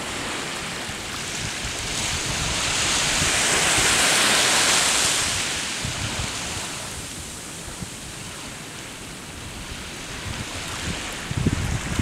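Small waves washing onto a sandy beach: one wash swells up, peaks a few seconds in and fades away. Wind buffets the microphone near the end.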